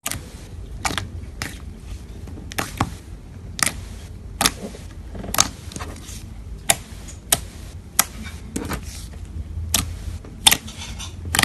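Slime being pressed and stretched by hand, giving a string of sharp, irregular clicks and pops about once or twice a second over a low rumble.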